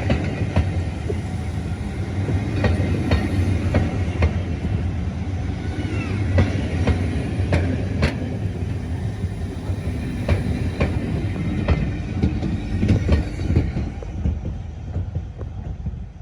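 Train rolling along the track: a steady low rumble with wheels clicking over the rail joints. The sound fades away near the end.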